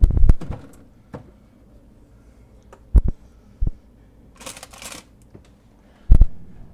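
Food being put into and taken out of a refrigerator: a few separate knocks and thumps of items on the shelves, with a short rustle about four and a half seconds in.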